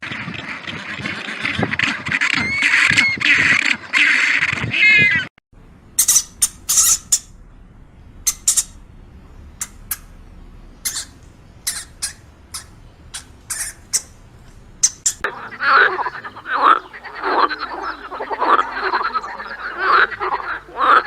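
A run of animal calls in three stretches: first a dense chorus of repeated cries, cut off about five seconds in; then sharp, high, spaced-out chirps; then, from about fifteen seconds in, another dense chorus of calls.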